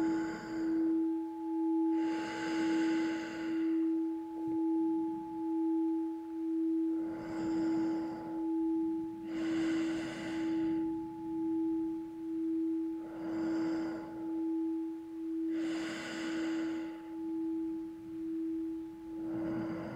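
A singing bowl rings in a steady low tone with a slow wavering beat about once a second. Over it come slow breaths through the nose in pairs, a shorter breath then a longer one, about every six seconds: the alternating two-rhythm 'double breathing' being practised.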